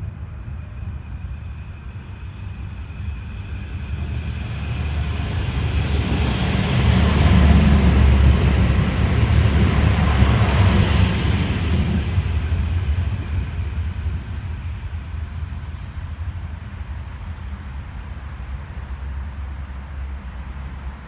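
Diesel passenger train passing the stop without stopping: a deep engine rumble and rushing wheel and air noise that build up, peak for several seconds, then fade away.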